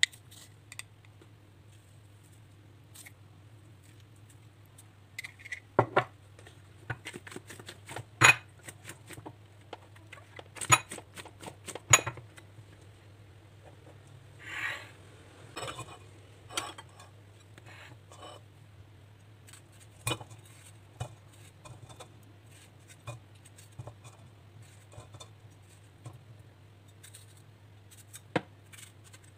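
Kitchen handling sounds: scattered clicks and knocks as chopped tomato pieces are picked out of a plastic colander and dropped into a stainless steel mesh strainer, with a few sharper knocks in the middle. A steady low hum underneath.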